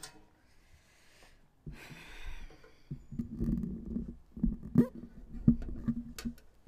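Handling noise on a microphone: a brief rustle, then low rumbling broken by several sharp knocks as the mic is taken and adjusted.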